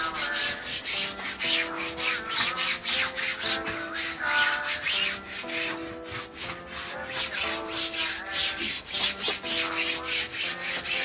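Rapid, repeated scrubbing strokes on a wet, soapy foam mattress, several strokes a second, with background music underneath.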